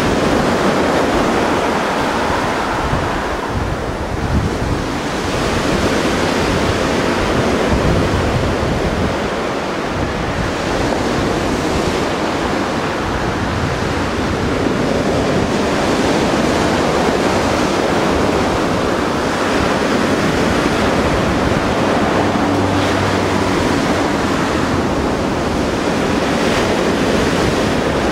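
Sea surf washing on the shore, a steady rush, with wind buffeting the microphone in low gusts.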